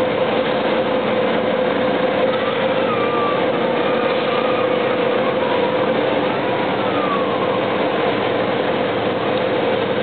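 Overhead crane hoisting a railway car in a workshop hall: a steady mechanical hum with one constant tone, running without a break.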